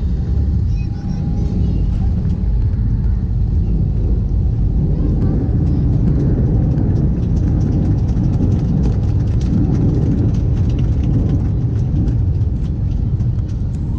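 Steady, loud rumble of a passenger airliner heard from inside the cabin in flight.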